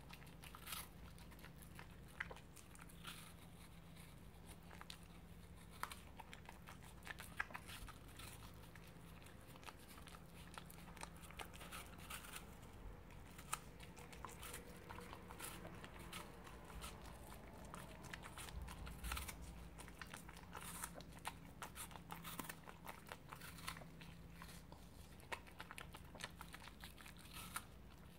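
Cockapoo biting small pieces off an apple core and chewing them: faint, irregular crunches of crisp apple flesh.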